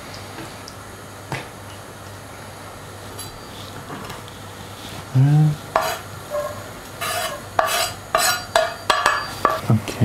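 A spoon stirring onion in oil in a metal pan. It knocks and clinks against the pan several times in the second half, the pan ringing briefly with each strike.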